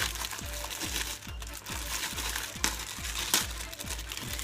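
A plastic cookie-mix packet crinkling as it is handled and its contents emptied into a bowl, over background music with a steady bass beat of about three beats a second.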